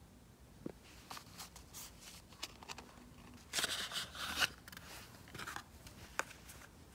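Cosmetics packaging handled by hand: light clicks and taps of small plastic eyeshadow cases and cardboard, with a scraping rustle about four seconds in as the Innisfree empty palette slides out of its cardboard sleeve, and a sharp click near the end.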